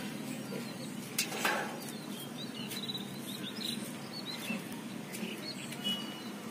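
Small birds chirping in the background: a run of short, high chirps from about two seconds in, over a steady low background noise. A couple of short rustling clicks come about a second in.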